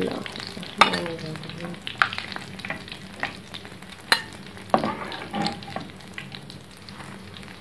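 Hot oil sizzling in a frying pan as fried potato-and-egg patties are lifted out with a metal slotted skimmer and set on a ceramic plate. Several sharp clinks of the skimmer against the plate and pan come through the frying.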